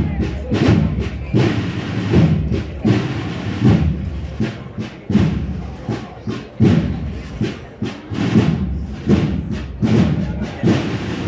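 A large band of over a hundred members playing, its drums beating a steady march rhythm with a heavy stroke about every three-quarters of a second.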